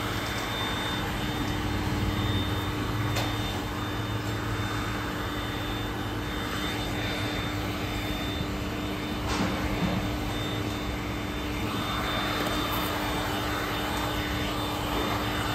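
Electric heat gun running steadily, its motor humming and its fan blowing hot air to shrink a plastic bag tight around a pack of PET soda bottles.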